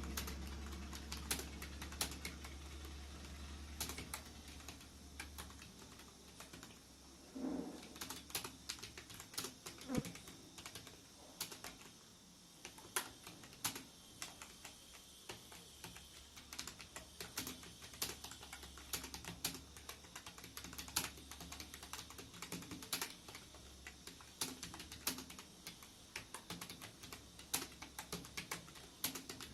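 Computer keyboard being typed on in an irregular stream of keystroke clicks, a speed-typing test in progress. A low hum runs under the first few seconds and then fades.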